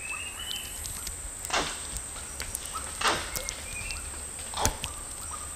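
Three short thuds on wet mud, about a second and a half apart, from long-tailed macaques moving and foraging in a mangrove at low tide. Two faint, short high chirps and a steady low background rumble lie underneath.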